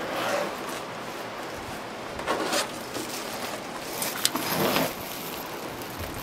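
Three short bursts of rustling and scraping, with a sharp click about four seconds in, over a steady hiss.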